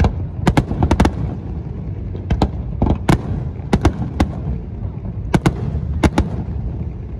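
Aerial firework shells bursting in quick, irregular succession: about fifteen sharp bangs, many in close pairs, over a continuous low rumble.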